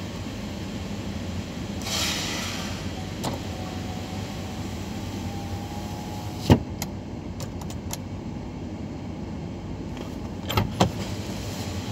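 Mitsubishi Pajero engine idling, heard from inside the cabin as a steady low hum. There is a brief rush of noise about two seconds in, a sharp click about halfway through and a couple of knocks near the end.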